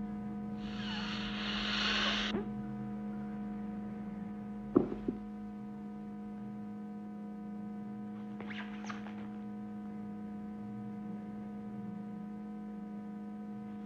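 Steady low electrical hum throughout. About half a second in, a loud hiss of escaping air lasts nearly two seconds. Near five seconds there is a sharp knock with two smaller ones, and near eight and a half seconds a fainter hiss: the sighing of the waiting-room chair's air-filled leather cushion.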